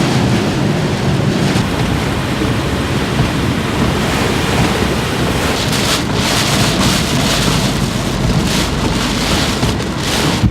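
Typhoon wind and heavy rain, with wind buffeting the microphone as a low rumble; the hiss of rain surges in gusts from about halfway through.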